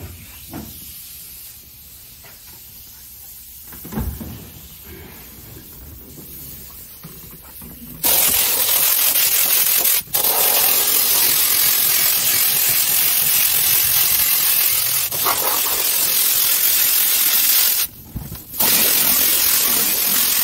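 Siphon-feed air spray gun spraying contact adhesive onto the underside of a car roof: a loud, even hiss that starts about eight seconds in, breaks off for an instant around ten seconds and for a moment near eighteen seconds, then carries on. Before the spraying there is quieter handling noise with a thump about four seconds in.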